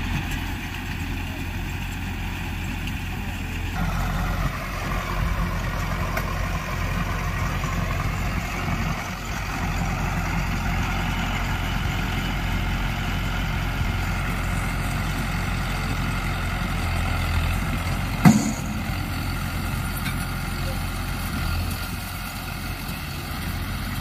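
Hindustan tractor's diesel engine running steadily as it pulls and drives a small round baler through straw. A single sharp knock stands out about eighteen seconds in.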